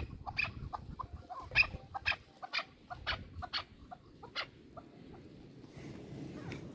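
Chukar partridges clucking: a rapid, irregular series of short, sharp 'chuck' notes that grows fainter and dies out at about four and a half seconds.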